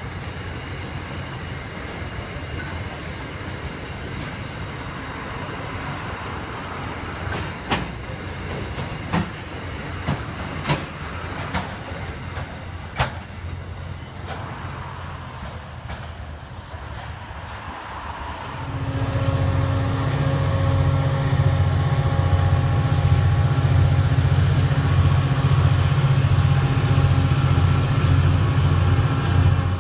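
Loaded grain hopper wagons rolling past with a steady rumble, their wheels clicking sharply over rail joints about five times. Then, about two-thirds of the way in, Aurizon diesel locomotives 2365 and 2351 go by close up, their engines running with a loud, steady hum.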